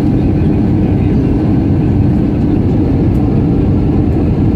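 Steady low rumble inside the cabin of an Airbus A320-family airliner on final approach: jet engine and airflow noise heard from a window seat over the wing.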